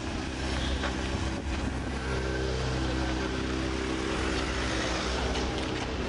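A car engine running at a steady pitch, its hum growing clearer about two seconds in, over a constant rushing noise.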